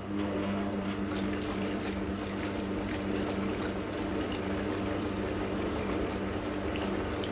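Laboratory apparatus running with a steady motor hum while a large glass flask holding a seawater sample with sediment turns, the water sloshing and splashing inside it.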